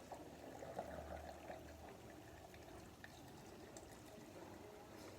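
Freshly boiled water being poured into a jar of sardines, loudest in the first two seconds and then faint.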